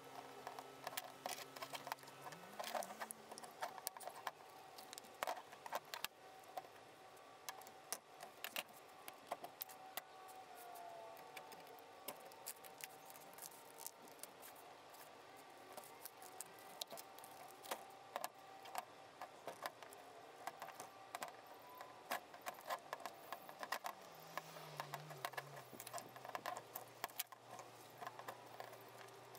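Faint, irregular clicks, taps and scrapes of a small hand tool and gloved hands working at cured fiberglass molds, freeing the 3D-printed parts and scraping modelling clay out of the mold cavities with a wooden stick.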